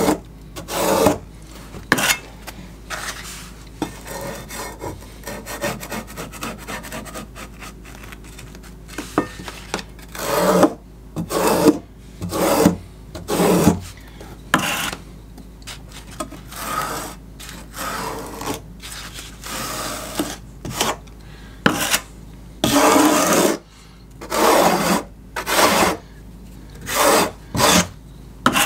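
Irregular scraping strokes of a steel margin trowel over a fabric waterproofing membrane laid in thinset mortar, pressing the membrane down and pulling the excess mortar out from behind it. Each stroke lasts well under a second, with short pauses between them.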